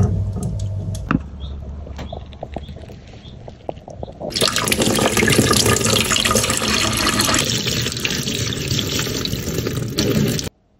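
Scattered drips and small splashes, then, about four seconds in, a tap running hard, its stream splashing over a sunglasses frame into a stainless steel sink, until it cuts off abruptly near the end.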